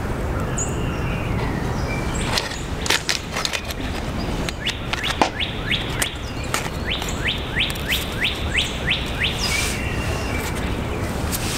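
A songbird sings two runs of quick falling whistled notes, about three a second, over a steady background rush, with a few sharp clicks.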